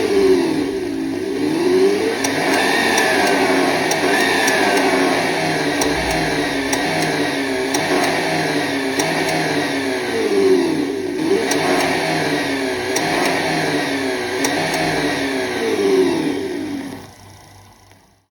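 An RC car's sound module playing a simulated engine sound through a small speaker, revving up and down again and again between steady running. The sound fades out near the end.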